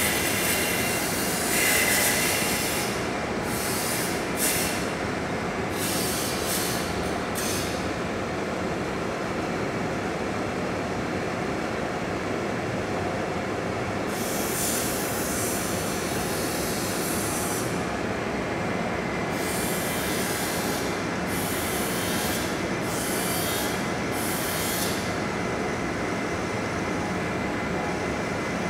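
Metal lathe running steadily while turning a metal air-hose nipple, with repeated stretches of high scraping hiss as the cutting tool is fed into the work: several short ones in the first eight seconds, then longer ones in the middle and latter part.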